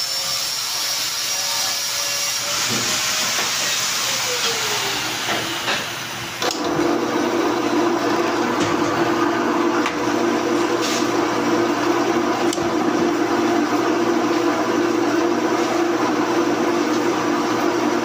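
Pillar drill press running: its motor whine falls in pitch about four seconds in, then it starts up again about six and a half seconds in and runs with a steady, louder hum, with a few sharp clicks.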